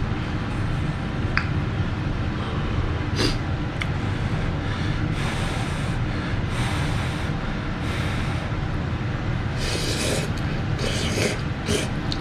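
Ramen noodles being slurped in a string of short hissy pulls, each under a second, over a steady low hum.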